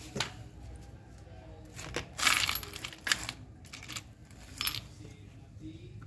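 A handful of short clicks and clinks, the loudest a brief rattle about two seconds in, as the plastic drive pulley and small metal parts are handled on a washing-machine gearbox.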